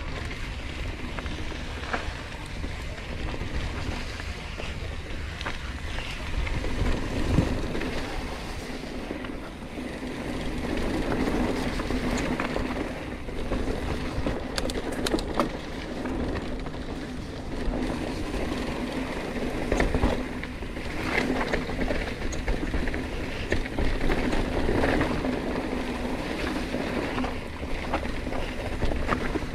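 Yeti SB100 full-suspension mountain bike ridden on a dirt trail: a steady rumble of tyres on the ground, with the bike rattling and knocking over rough spots.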